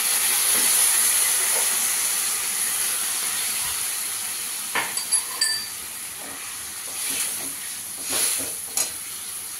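Water just poured into a hot kadhai of fried masala, chana dal adauri and potatoes, sizzling loudly; the sizzle dies down steadily over several seconds as the water takes up the heat. A few short clicks and scrapes of a steel spatula on the pan come about five seconds in and again near the end.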